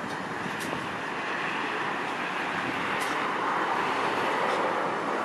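Loaded iron-ore train rolling slowly into a rail yard: a steady rushing rumble of wagons on the rails that swells near the end, with a few faint clicks.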